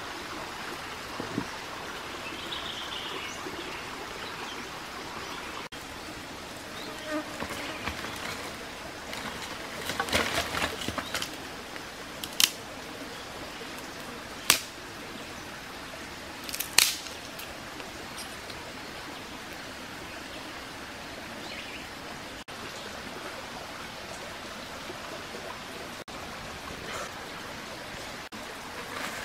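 Steady rush of a shallow rocky creek, with a few sharp knocks and clicks from firewood and a clay cooking pot being handled, including a burst of rapid clicking about ten seconds in.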